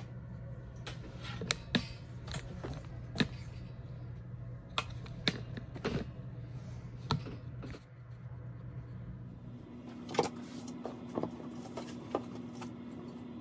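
Scattered light knocks and clicks of hands handling bins, the sifting screen and compost, over a steady low hum that shifts to a higher hum about ten seconds in.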